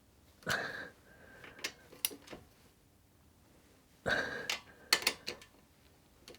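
Metal hand tools being handled while the footpeg bracket bolts are done up: two short clanks with a brief ringing tone, about half a second and four seconds in, and a few light metallic taps.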